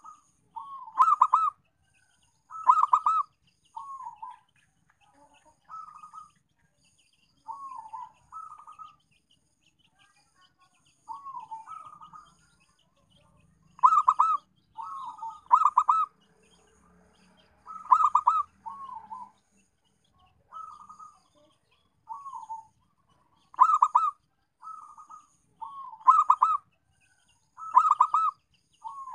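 Zebra dove (perkutut) cooing: loud clusters of quick staccato coo notes every two seconds or so, with softer falling coos between them.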